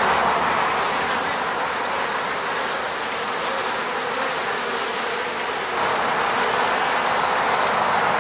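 Many honeybees buzzing around their hive in a dense, steady drone. It grows a little louder about six seconds in.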